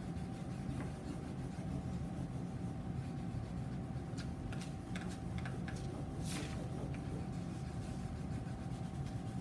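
Crayon rubbing back and forth on paper held against a whiteboard, a soft scratching as a blue stripe is coloured in, with a few faint ticks in the middle. A steady low hum lies underneath.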